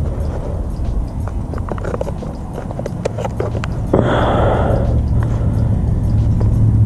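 Close handling noise as fingers work a foil-wrapped fish head: scattered small crinkles and clicks of the aluminium foil, with a brief rustle about four seconds in, over a steady low rumble.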